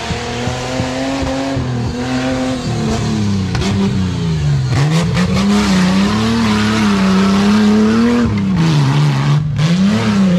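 Off-road racing 4x4's engine revving hard on a loose dirt climb, its note rising and falling repeatedly with throttle and gear changes, loudest as the vehicle passes close about midway, with the scrabble of tyres on dirt.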